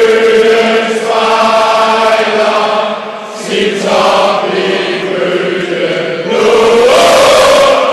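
Large crowd of football fans chanting in unison, a sung chant with long held notes. There is a brief lull about three seconds in, and a louder phrase near the end.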